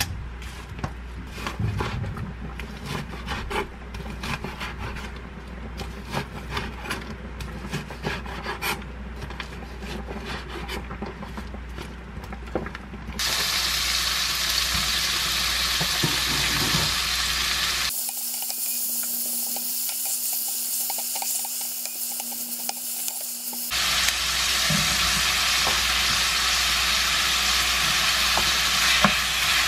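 Light clicks and taps as raw bacon is handled on a wooden cutting board, over a low steady hum. About 13 seconds in, bacon and minced garlic sizzle in a frying pan with a steady hiss, which grows louder about 24 seconds in as diced eggplant goes into the pan.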